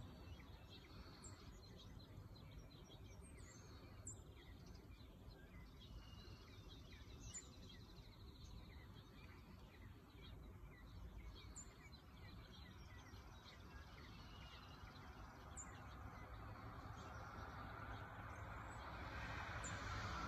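Quiet outdoor ambience with faint, short high bird chirps every few seconds. A rushing noise swells over the last few seconds.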